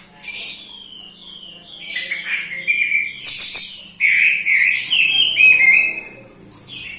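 A songbird calling: harsh scratchy chirps and runs of quick downward-slurred whistles, loudest through the middle of the stretch, with a brief chirp near the end.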